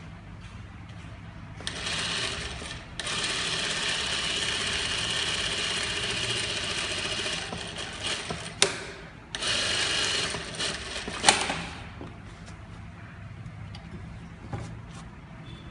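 Sakura Stitch industrial single-needle lockstitch sewing machine sewing pintucks through a folder attachment, running in bursts: a short run about two seconds in, a long steady run of about four and a half seconds, then another run of about two seconds. Sharp clicks come between and just after the runs, the loudest about eleven seconds in.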